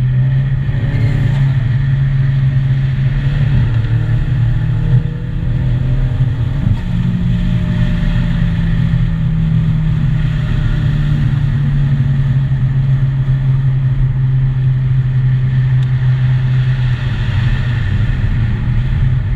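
Ford Mustang EcoBoost's turbocharged 2.3-litre four-cylinder running at a steady pace, a strong low drone with fainter tones gliding slowly up and down. The loudness dips briefly twice, about five and seven seconds in.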